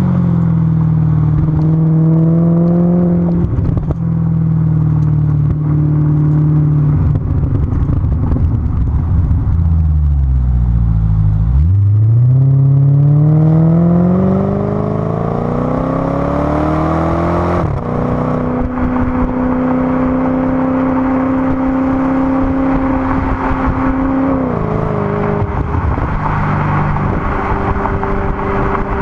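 Maserati GranTurismo's 4.2-litre V8 heard at the tailpipe through a SuperSprint exhaust while driving. The engine note falls as the car slows, then rises in one long pull for about six seconds and drops sharply at an upshift before settling to a steady cruise, with a small dip near the end. Wind and road rush run underneath.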